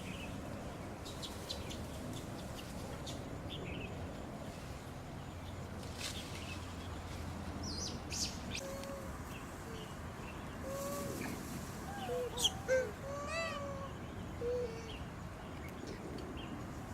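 Short pitched animal calls, a quick cluster of them about twelve to thirteen seconds in, with thin high chirps scattered through over a steady outdoor background hiss.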